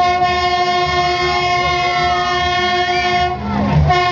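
A horn sounding one loud, steady, unwavering note, held for several seconds and cutting off about three and a half seconds in, with crowd voices underneath.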